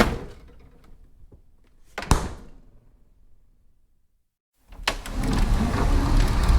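A door shutting with a sharp thud, then a second thud about two seconds later. After a short silent break, a different door effect begins with a click and runs on as a longer, steady rough noise.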